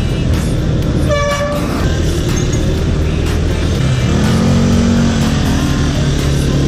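A vehicle horn toots once, briefly, about a second in, over background music with a steady beat and low traffic hum.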